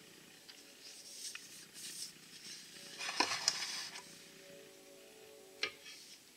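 Handling noise from a Starrett No. 98 machinist level being lifted out of its wooden carrying case and set down on a rubber mat: light rubbing and scraping, a busier burst of scraping and clicks about three seconds in, and one sharp click near the end.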